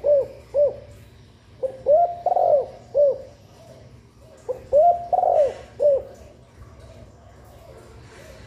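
Spotted dove cooing close by: the end of one phrase, then two full phrases of about four arching coos each, the third coo of each phrase the longest. The calling stops about six seconds in.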